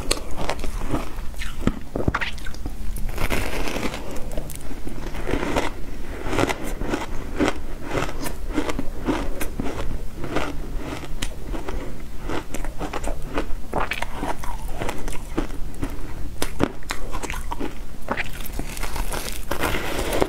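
Packed shaved ice being crunched: chunks broken off by hand and bitten and chewed, a dense, irregular run of sharp crunches.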